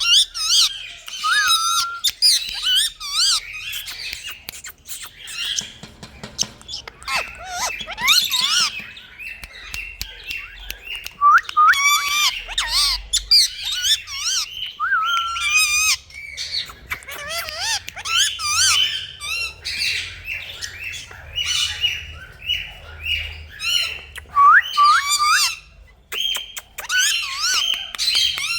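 Indian ringneck parakeet calling: a rapid, high-pitched run of chirps, squawks and whistled notes that swoop up and down in pitch, in bursts with short pauses between them.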